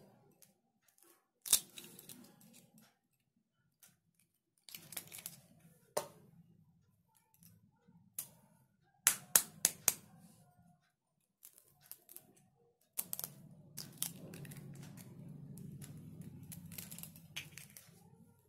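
Eggs knocked against the rim of a stainless steel mixing bowl and cracked into it: a few sharp taps spread apart, with quieter handling clicks between. A low steady hum comes in for the last few seconds.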